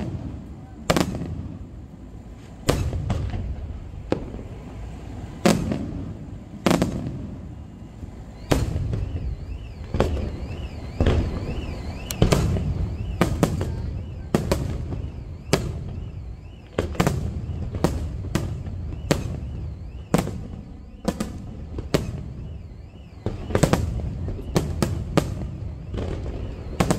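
Aerial firework shells bursting in a long, irregular run of sharp booms, each trailing off in a low rumble, coming thicker and faster in the second half.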